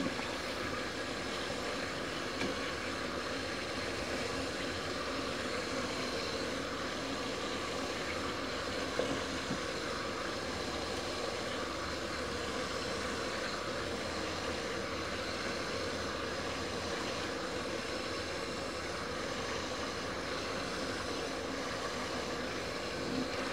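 Steady noise of water boiling under an enamel steamer pot on the stove, with one faint knock about nine seconds in.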